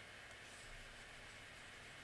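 Near silence: a faint, steady room hiss.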